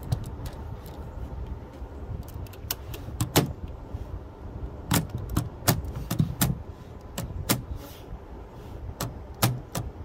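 Antique Hammond Multiplex typewriter mechanism being handled and worked by hand: an irregular series of sharp metallic clicks and knocks from its levers and parts, more frequent from about three seconds in.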